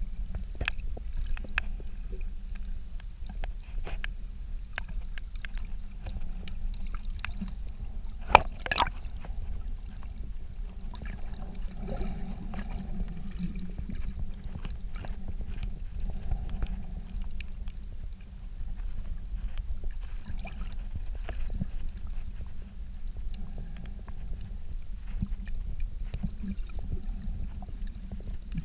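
Underwater sound through a submerged camera: a steady, muffled low rumble of water with scattered faint clicks and crackles, and one sharper click about eight seconds in.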